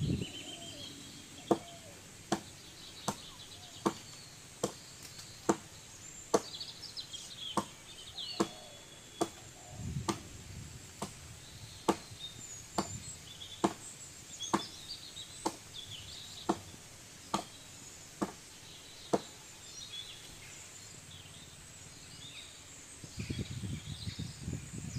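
Steady chopping: a blade striking wood about once every 0.8 s, some twenty sharp strokes that stop a few seconds before the end. Birds chirp throughout, and a rustle of leaves and branches comes near the end.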